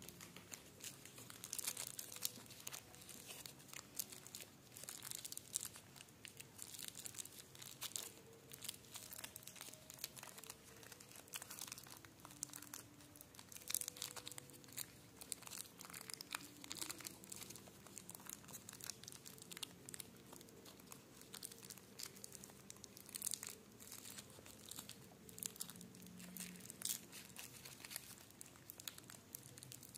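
Twist-wrapped mini Mars bar wrapper crinkling and crackling in irregular, quiet bursts as fingers untwist it and peel it back from the chocolate.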